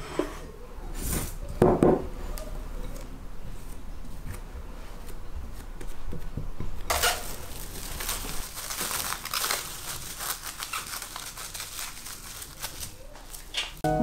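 Plastic cling film crinkling as it is pulled and stretched over a glass bowl, starting about halfway through and lasting some six seconds. Near the start, a couple of knocks.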